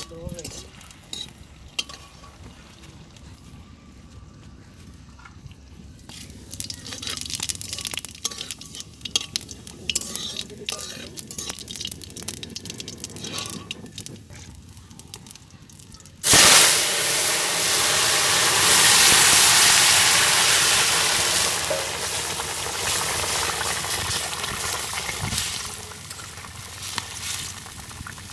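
Dried red chillies and seeds crackling and popping in hot oil in a karahi (tempering). About 16 seconds in comes a sudden loud hiss as the koi fish and potato curry goes into the hot oil, which eases into a steady sizzle.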